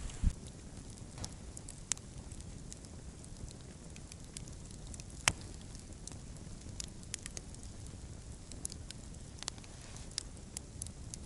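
Wood campfire crackling, with irregular sharp pops scattered through, the loudest about five seconds in, over a low steady rumble.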